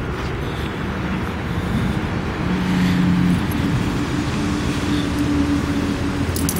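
A motor vehicle's engine humming over a steady low rumble, growing louder about two seconds in and then holding.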